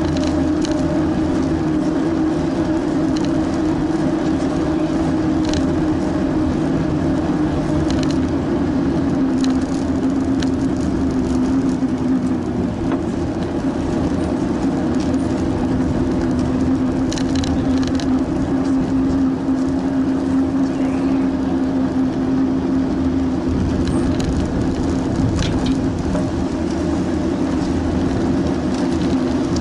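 Steady rolling noise of a bicycle riding on a paved path, picked up by a camera mounted on the bike: a continuous tyre hum and rumble whose pitch shifts slightly with speed, with a few light ticks and rattles from the bike over bumps.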